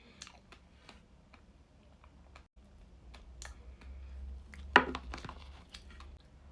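Close-miked eating of trifle: soft scattered clicks and taps of a spoon and mouth, with one sharp, louder clink a little under five seconds in.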